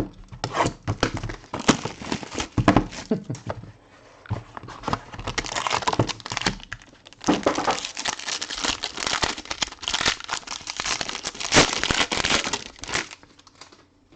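Plastic wrapping on a trading card box and pack being torn open and crumpled, an irregular crinkling and crackling with a short pause about four seconds in.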